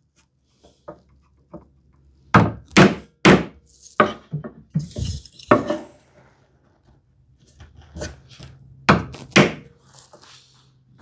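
Sharp wooden thunks, several in a run through the first half and two more near the end, as the cherry lid and its brass hinge are knocked to force the hinge to seat properly.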